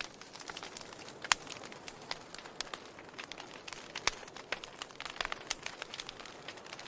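Wood fire burning with a steady hiss and irregular sharp crackles and pops, one louder pop about a second in.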